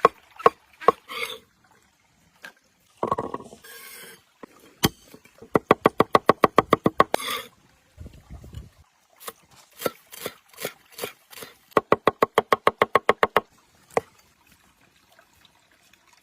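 Quick chopping strikes on a cutting surface, in two fast even runs of about eight a second, with single knocks in between.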